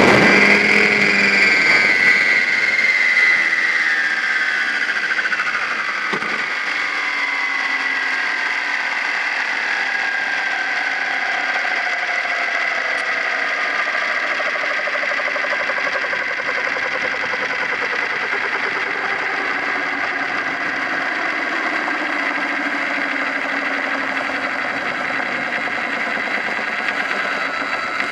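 Onboard sound of a T-Rex 800 radio-controlled helicopter landing and its rotor and drive spooling down: a mechanical whine whose pitch falls slowly over about twenty seconds, with a single knock about six seconds in.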